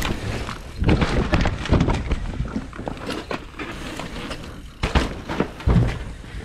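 Mountain bike knocking and rattling as it is ridden hard, with a string of irregular thuds and clatters.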